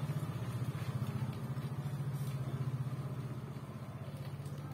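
An engine idling steadily with a low, even throb.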